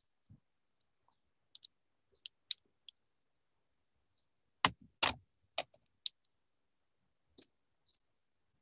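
Scattered sharp clicks and small knocks, about ten at irregular intervals with silence between them; the loudest come in a cluster about five seconds in.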